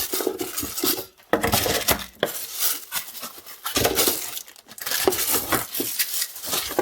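Hard parts and packaging being handled in a microphone kit box: irregular clinks, knocks and clatter mixed with rustling.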